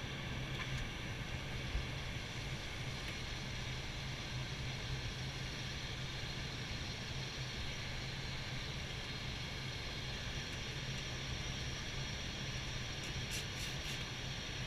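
Steady flight-deck noise of an Airbus A320 in flight on approach: an even hiss over a steady low hum, with a few faint ticks near the end.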